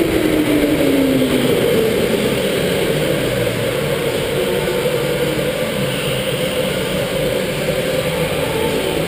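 Electric go-kart running on an indoor track, heard from the driver's seat: the motor's whine drops in pitch during the first second or so as the kart slows for a corner, then holds a steady pitch down the straight, over a constant rush of noise.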